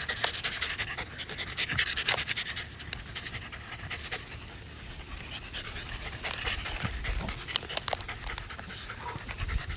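Adult Pembroke Welsh Corgi panting close by in quick, short breathy puffs, heaviest in the first couple of seconds and again a little past the middle.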